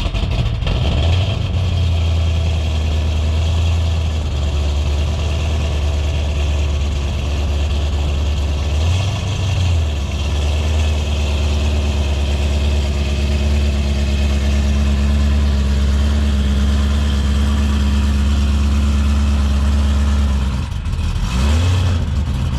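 A motor vehicle's engine running steadily with a loud, low drone. It eases and shifts in pitch briefly about nine seconds in and again near the end.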